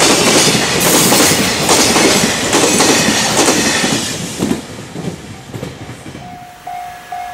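Container wagons of a freight train rushing past, with the rhythmic clatter of wheels over rail joints. It fades away as the last wagon clears, about four seconds in. About six seconds in, a level-crossing warning bell starts ringing with a repeated electronic chime, about two strikes a second.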